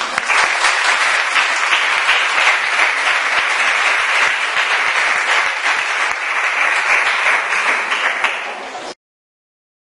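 Audience applauding: many hands clapping steadily, stopping abruptly near the end.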